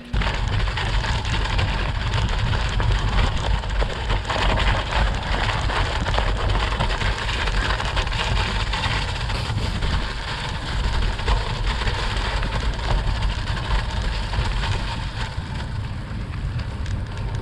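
Wind buffeting the microphone of a camera on a mountain bike being ridden, a deep rumble over a steady rushing noise of the tyres rolling on a snowy off-road track.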